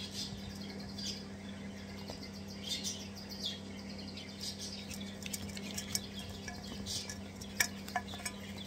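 Crimson Rosella chicks giving short, high-pitched begging squeaks and chirps again and again while being hand-fed. In the second half there are a few sharp clicks of the feeding spoon against the bowl, over a faint steady hum.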